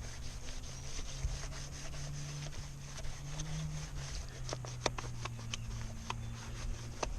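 Scrubbing a kayak hull by hand: a steady run of rough rubbing strokes, with a few sharper scrapes past the middle, as the stains are worked off.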